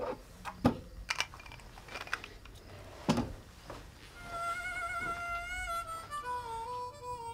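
A few scattered knocks and clicks, then a harmonica plays a long, slightly wavering note about four seconds in, followed by a slow phrase of stepwise falling notes.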